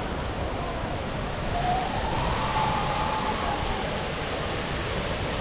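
Steady rush of flowing water on a boat ride, with a few faint wavering tones over it.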